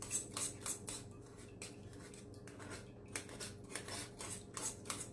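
Metal spoon scraping and pressing cooked tomato pulp against a fine stainless-steel mesh strainer to force it through and hold back the seeds: a run of short, rasping scrapes, about three a second.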